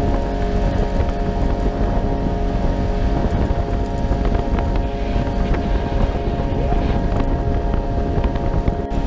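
Engine of a Polaris RZR side-by-side running at a steady speed while driving, with wind buffeting the microphone.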